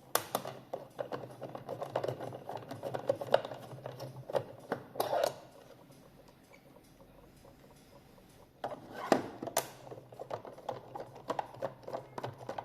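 Light, irregular clicks and taps of a screwdriver and the clock's plastic case parts being handled while its screws are undone, with a quiet pause of a couple of seconds in the middle.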